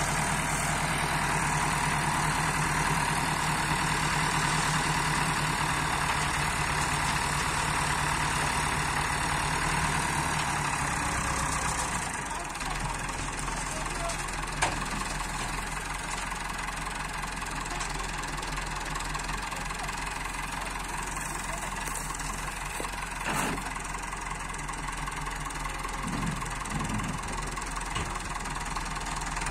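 A Massey Ferguson tractor's diesel engine idling steadily. Its note drops lower and quieter about twelve seconds in.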